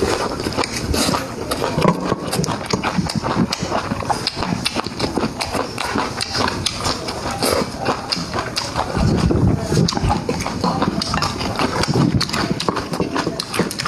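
Close-miked eating: chewing and mouth smacking, a dense run of irregular clicks and smacks.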